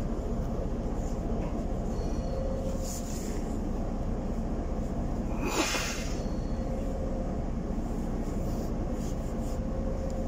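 Solaris Urbino 12 city bus idling at a standstill, heard from inside the cabin: a steady low engine rumble. About five and a half seconds in comes one short hiss of released air.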